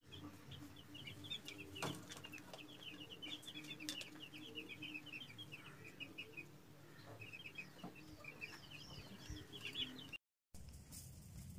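Several young chicks cheeping: a quick, uneven run of short high peeps, often overlapping, over a faint steady hum. The peeping breaks off with a short dropout about ten seconds in.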